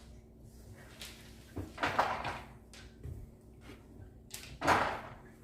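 A few short knocks and rustling handling noises, the loudest about two seconds in and again near the end.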